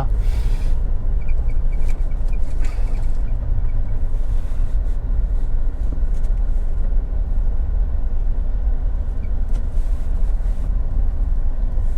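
Vehicle moving slowly, a steady low rumble of engine and tyres.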